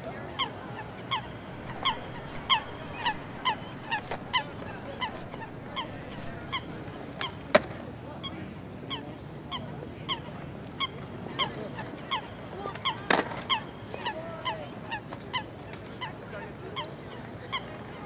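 Repeated short honking calls, about two a second, each dipping slightly in pitch, with a sharp click about seven and a half seconds in.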